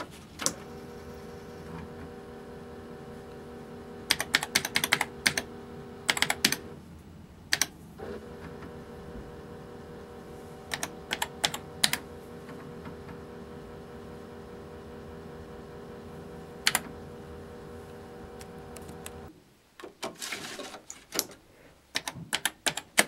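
Tandy TRS-80 Model 4D's 5.25-inch floppy drives running as the computer boots from disk: a steady motor hum with bursts of clicking from the heads stepping, broken briefly about seven seconds in. A few seconds before the end the drives stop and keys are typed in quick clicks.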